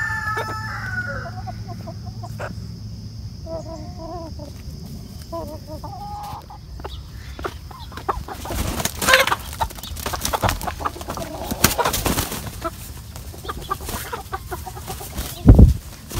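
Chickens clucking, with a squawk at the start and short clucks about four and six seconds in. From about halfway on come rustling and wing-flapping scuffles of a rooster mounting a hen, with a loud burst of flapping just before the end.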